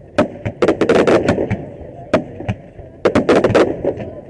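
Aerial fireworks shells bursting overhead: sharp bangs in rapid clusters, about a second in and again about three seconds in, with single bangs between, each cluster followed by an echo.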